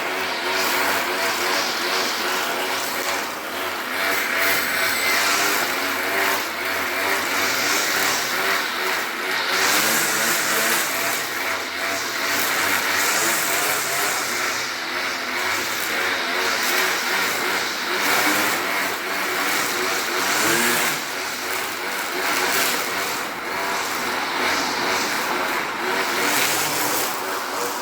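Grass trimmer running continuously while cutting grass, its motor pitch wavering up and down, over a steady hiss.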